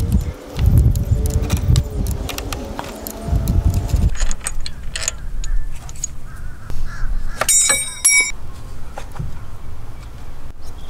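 Clicks and clanks of a torque wrench and 24 mm socket working on the crankshaft pulley bolt, the pulley held still by a chain, with wind rumbling on the microphone in the first few seconds. A brief high ringing call sounds a little past halfway, and a few short bird chirps come near the end.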